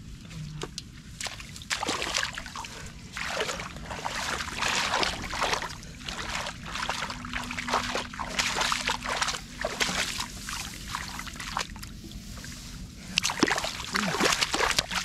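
Shallow water splashing and sloshing in quick, irregular bursts as hands work through it to catch fish.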